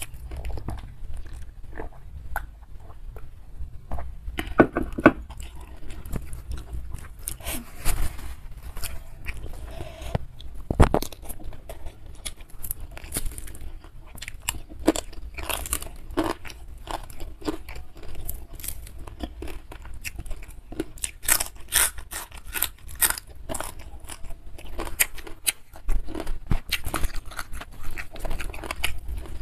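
Close-miked eating sounds: a person chewing and crunching grilled fish and rice eaten by hand, with many sharp, irregular crunches.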